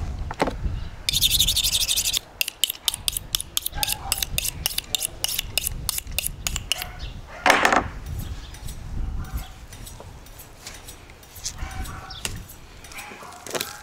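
A large knife scraped along a steel honing rod: first a rapid run of strokes, then separate high, sharp strokes several a second. After a brief louder rush of noise past the middle, quieter knife sounds follow as a raw leg of lamb is cut.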